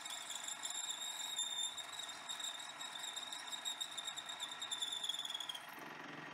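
Twist drill in a lathe-mill combo's spindle cutting through 2 mm stainless steel plate with a steady high-pitched squeal over the hum of the running mill. The squeal stops about five and a half seconds in, and the spindle keeps running.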